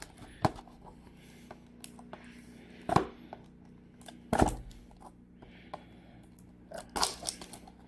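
Scissors and a cardboard trading-card box being handled as the box is cut open: a few separate sharp clicks and knocks, about four in all, with light rustling between.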